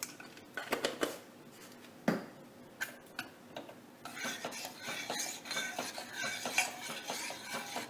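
Metal spoon against a cooking pot: a few separate clinks and knocks, the sharpest about two seconds in, then a busy run of rapid clinking and scraping from about four seconds in.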